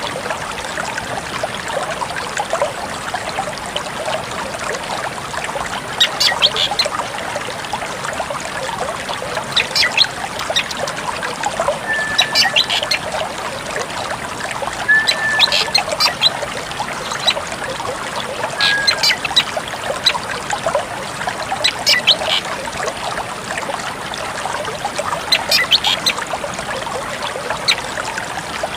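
Drongo calling in short clusters of sharp, high notes with the odd brief whistle, repeating every three or four seconds over a steady trickle of running water.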